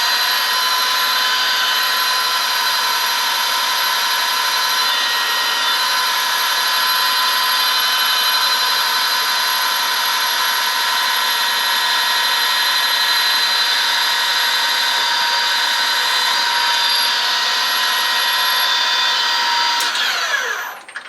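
Metal lathe (Harrison M250 gear-head) running steadily, a loud even gear whine with several pitches, then its spindle winding down near the end, the whine falling in pitch as it stops.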